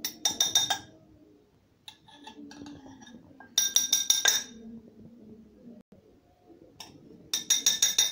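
Metal spoon knocking rapidly against a stainless steel mortar, the bowl ringing. It comes in three short bursts of clinks: one at the start, one about three and a half seconds in, and one near the end.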